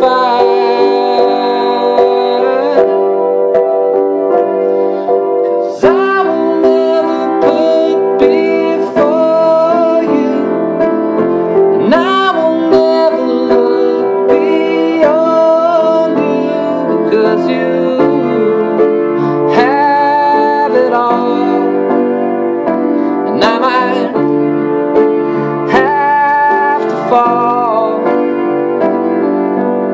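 Piano chords played steadily while a man sings wordless, sliding vocal lines over them.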